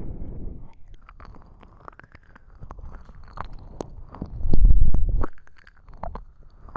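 Slow ear licking on a binaural microphone: wet mouth clicks and smacks close to the mic, with a loud, low, muffled rumble lasting about a second around the middle.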